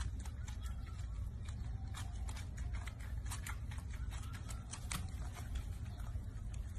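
Water splashing and dripping in a washbasin as wet, soapy hands scrub a baby monkey: an irregular run of small splashy clicks over a steady low hum.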